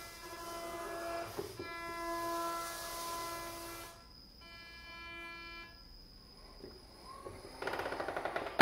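Combat robot's electric motors whining at a steady pitch as it is driven, fading after about four seconds, then a fast rattling buzz near the end that finishes in a loud knock.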